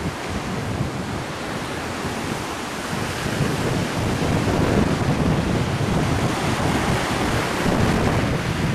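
Ocean surf washing up a pebble beach, a steady rush, with wind buffeting the microphone.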